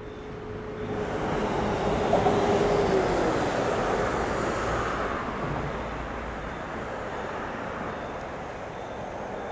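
A vehicle passing by on the street: a rush of noise swells to a peak about two to three seconds in and slowly fades, and a steady tone in it drops in pitch as it goes past.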